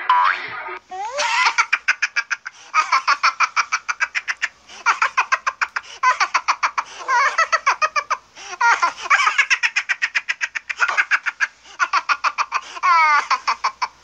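High-pitched, uncontrollable laughter: bout after bout of rapid cackling pulses, about ten a second, with short breaks for breath, starting about a second in.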